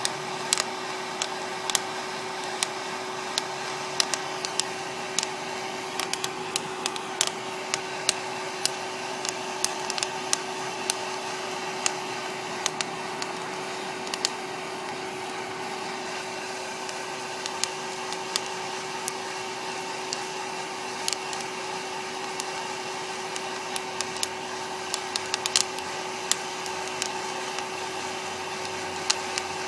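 West Bend Poppery hot-air popcorn popper's blower running steadily with a constant hum, while the coffee beans roasting in it crack with sharp, irregular pops, a sign that the roast has reached the crack stage.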